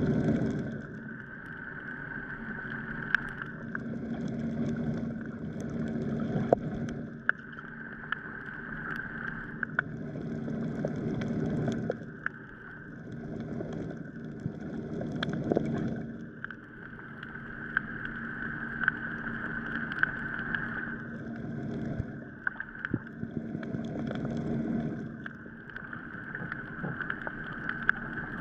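Underwater ambience picked up by a GoPro camera while snorkeling over a reef: a steady hum with slow swells every three to four seconds and scattered sharp clicks.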